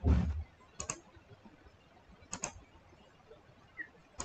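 A short low thump at the start, then a few sharp double clicks of a computer mouse, spaced a second or more apart.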